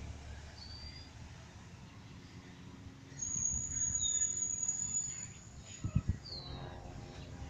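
Small birds chirping: a few short high chirps, and a long thin high whistle from about three seconds in to past five. A couple of low thumps come near the six-second mark over a steady low background rumble.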